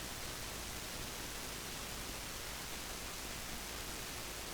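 Steady hiss from a JVC GR-AXM700 VHS-C camcorder's tape recording, with nothing else heard.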